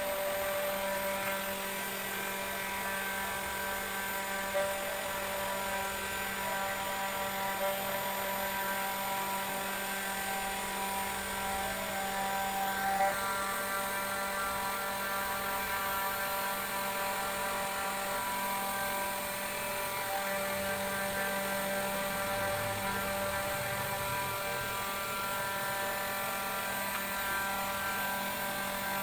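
A 500 W spindle on a DIY CNC router running steadily as its 4 mm single-flute carbide end mill engraves lettering into wood. It makes an even whine of several held tones, and the pitch shifts a little as the cutter moves along the letters.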